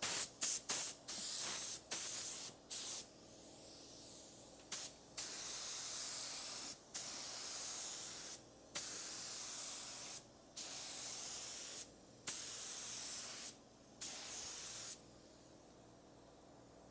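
HVLP paint spray gun spraying single-stage car paint, its air hiss starting and stopping as the trigger is pulled and released. A few short puffs come first, then steady passes of about a second and a half each with brief gaps, and the spraying stops about 15 seconds in.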